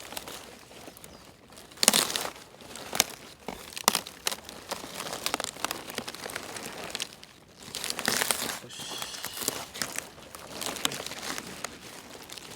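Napa cabbage leaves rustling, crunching and crackling in irregular bursts as the large head is handled and harvested.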